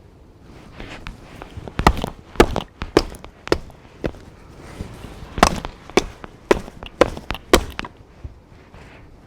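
A blade striking wood in two runs of about five blows, roughly two a second, as a knotty piece of firewood is chopped or split.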